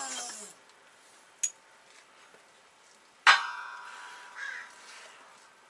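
A steel part or tool set down hard on metal: one sharp clang about three seconds in that rings briefly, after a lighter click a little before.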